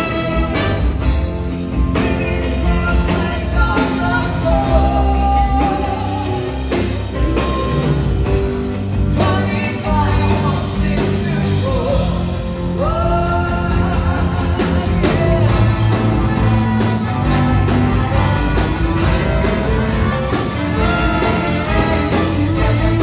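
Live band with a horn section (saxophones, trombone, trumpet), keyboards, guitars and drums playing a rock song with singing, heard from the audience.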